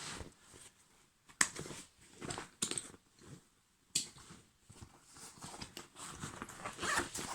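Sling pack being handled and opened: scattered sharp clicks, then denser rustling and scraping near the end.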